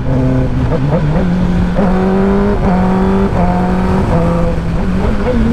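Kawasaki ZX-10R's 998 cc inline-four running at highway speed under acceleration, over rushing wind. Its note moves in short steps with brief breaks about every two-thirds of a second, typical of gear changes made with the quick shifter and auto-blipper.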